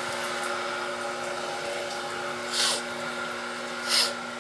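A steady machine hum with a few fixed tones, broken twice by a short hiss, once about two and a half seconds in and once near the end.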